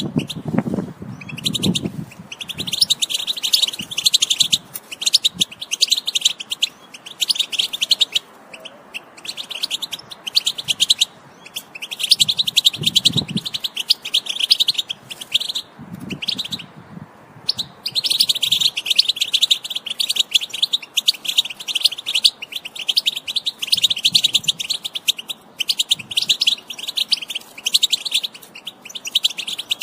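European goldfinch song: long runs of rapid, high twittering notes, broken by short gaps and a longer pause around the middle.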